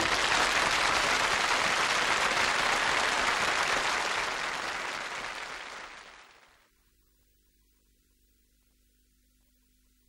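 Audience applause, steady and then fading out about six seconds in, leaving near silence with a faint hum.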